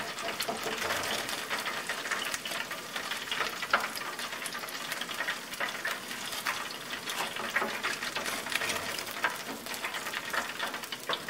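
Hot oil in an electric deep fryer sizzling and crackling steadily, set to about 350 °F, with many small sharp clicks as metal tongs lift freshly fried chicken from the wire basket.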